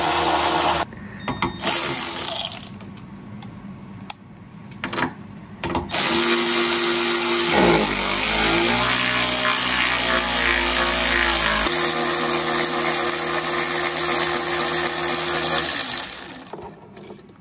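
A cordless electric ratchet driving bolts, with a few short bursts and then one long run of about ten seconds from about six seconds in. The motor note sinks lower through the middle of the run as it comes under load, then steadies until it stops near the end.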